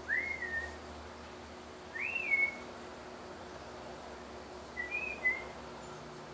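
Three short whistled notes, about two seconds apart, each sliding up in pitch and then holding; the last one steps up and back down.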